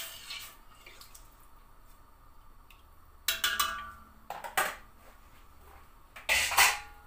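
A metal spoon stirring soup in a stainless steel pot, then several sharp clinks and knocks of metal kitchenware as the spoon is taken out and set down, with the loudest clatter near the end.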